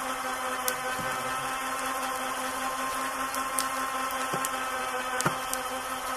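Champion 3500 lb electric ATV winch running under heavy load on a double-line pull, reeling in against a hung-up tree bigger than it usually pulls: a steady motor whine with a few short sharp cracks. It cuts off abruptly at the very end.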